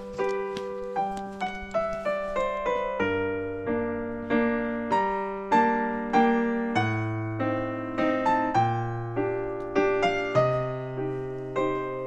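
Background piano music: a slow melody of struck notes, about two a second, each ringing out and fading, over held bass notes.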